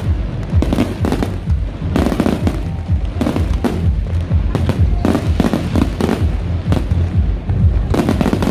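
Fireworks going off in a dense barrage: many loud bangs in quick succession, several a second, with crackling between them.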